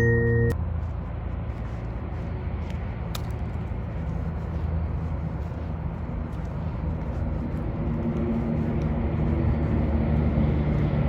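A short chiming mallet-music jingle cuts off about half a second in. It gives way to a steady outdoor rumble of vehicle engines and traffic, with a low engine hum that grows stronger near the end.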